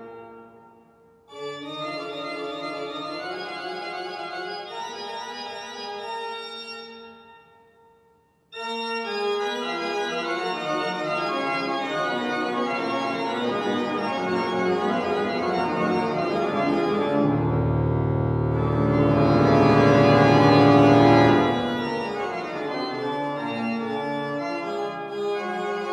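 An organ playing a piece in phrases. The sound dies away in two short breaks, one just after the start and one about eight seconds in. It then swells to its loudest, with deep bass notes, for a few seconds past the middle, before easing back.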